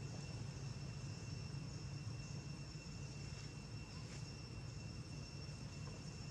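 Steady high-pitched insect drone, cricket-like, over a low steady rumble, with a faint brief click about four seconds in.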